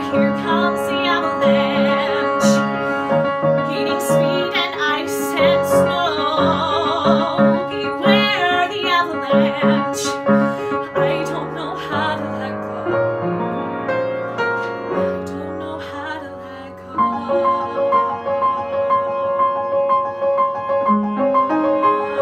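A woman singing a musical-theatre ballad solo with vibrato over piano accompaniment, holding a long high note in the last few seconds.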